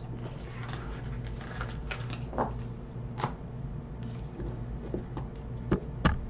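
Oracle cards being shuffled and handled, with soft rustles and a few sharper clicks and taps, over a steady low hum.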